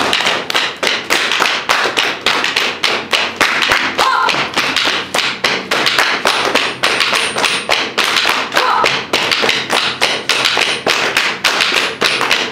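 A large drum struck with a stick in a quick, even beat of sharp, repeated strokes.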